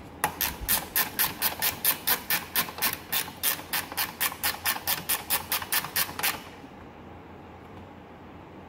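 Ratcheting wrench clicking rapidly, about five clicks a second, as a nut on a ground stud is tightened; the clicking stops about six seconds in.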